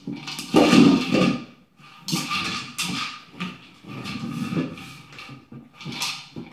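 Hollow plastic dog toy being nosed and knocked about by dogs, rolling and clattering on wooden floorboards in a run of irregular knocks, with claws scrabbling on the boards.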